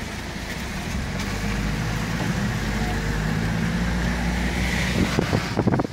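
Car engine and road noise heard from inside the cabin while driving: a steady low drone that grows a little louder about a second in. A quick run of clicks and knocks comes near the end.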